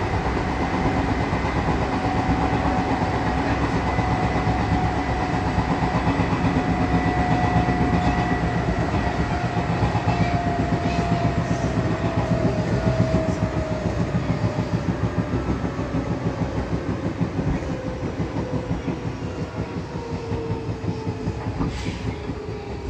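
Odakyu 8000 series field-chopper electric train running, heard from inside the car: wheels clicking over the rails under a motor whine that falls steadily in pitch as the train slows.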